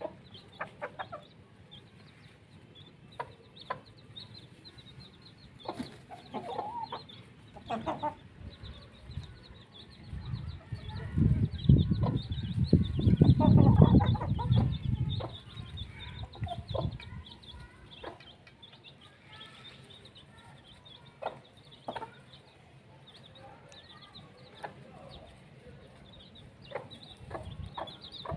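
Domestic chickens clucking in short calls over constant high chirps. A loud low rumble lasts several seconds in the middle.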